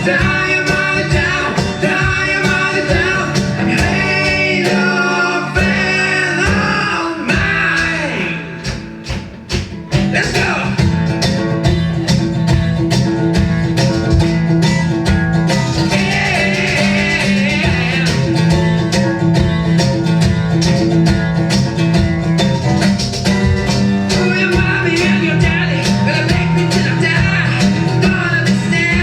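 A band playing country-style music with guitar and singing. The music thins out and drops in loudness about seven seconds in, then comes back in full about ten seconds in.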